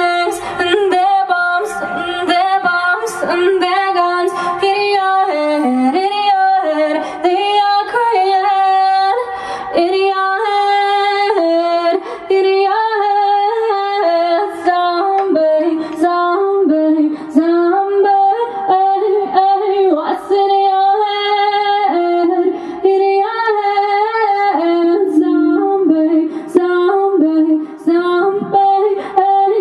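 A woman singing a melody with long held notes that waver and slide in pitch, her voice standing almost alone with little instrumental backing heard.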